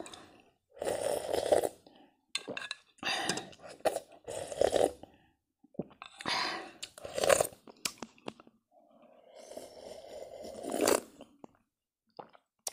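Slurping hot soup straight from the rim of a small aluminium pot: several separate slurps with short pauses between, the longest one near the end.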